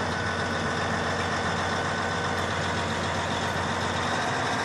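Caterpillar D9L crawler bulldozer's diesel engine idling, running steadily and evenly.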